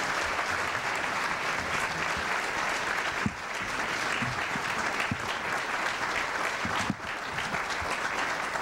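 Audience applauding steadily, a roomful of people clapping.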